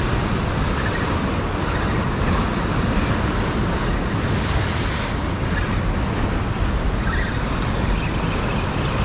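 Ocean waves breaking and washing over the boulders of a rock jetty, with wind buffeting the microphone. The hiss of the surf eases off about five seconds in.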